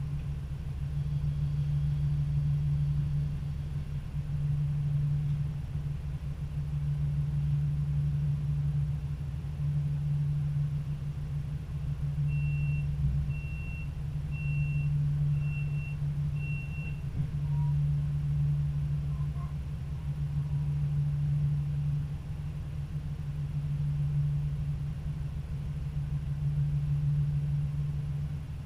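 Stadler GTW diesel railcar standing with its diesel engine idling: a steady low hum that swells and eases every two to three seconds. About halfway through, five short high beeps sound in quick succession.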